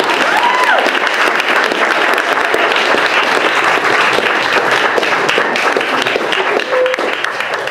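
Audience applauding: many hands clapping steadily, with a few voices over the clapping.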